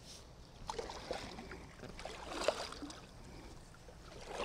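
Kayak paddle strokes: the blade dipping and pulling through calm sea water, with soft splashing and dripping that swell with each stroke, about a second in, midway, and again near the end. The fishing kayak is being paddled by hand because its electric trolling motor has gone dead.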